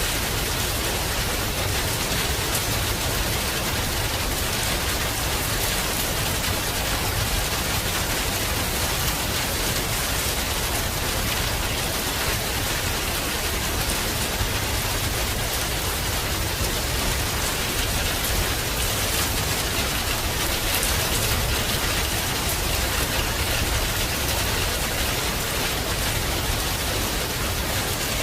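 Heavy rain falling steadily, a dense, even hiss of drops that does not let up.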